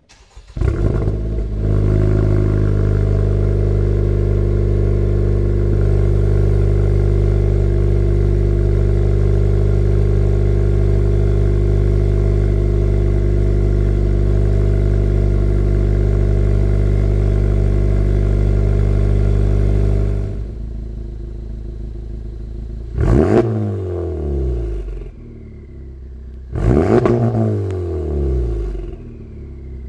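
Honda Civic Type R FL5's turbocharged 2.0-litre four-cylinder, breathing through a new stainless-steel cat-back exhaust, starts and idles steadily, then turns quieter about two-thirds through. Near the end it is revved twice, each rev falling away with a fading whistle.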